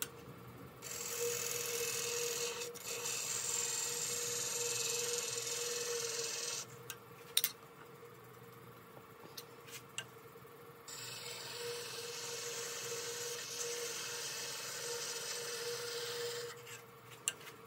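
A skew chisel shaving a spinning tea tree (melaleuca) spindle on a wood lathe: a steady shearing hiss over the lathe's constant hum. The cutting stops for about four seconds midway, with a few sharp knocks, then resumes until shortly before the end.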